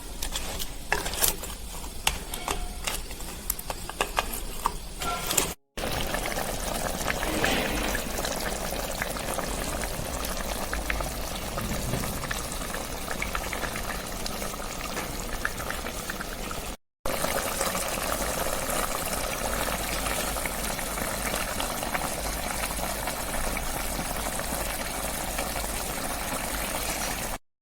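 Crab curry boiling in a pot: a steady bubbling hiss. Over the first five seconds or so come a string of sharp clinks and knocks, and the sound breaks off abruptly twice.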